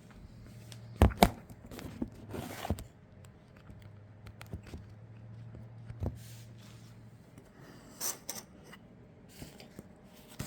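Cardboard and plastic packaging being handled and torn, with sharp knocks as parts are set down: two close together about a second in, more later, and a short rustle near the end.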